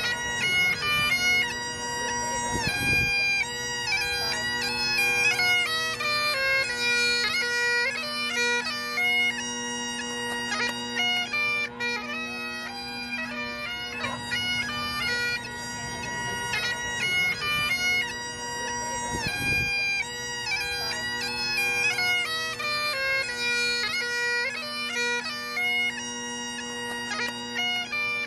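Great Highland bagpipe playing a tune: the steady drone holds underneath while the chanter melody moves from note to note above it.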